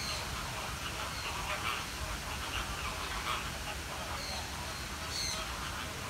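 Birds calling with many short, repeated notes over a low steady rumble.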